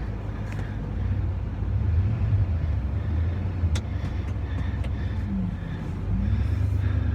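Ford F-150 pickup engine running while driving, heard from inside the cab as a steady low drone that swells louder a couple of times.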